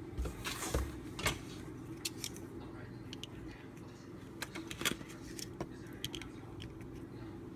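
Plastic popsicle molds being handled on a countertop: scattered light clicks and knocks of the lids and stick handles, loudest about a second in and again about five seconds in, over a steady low hum.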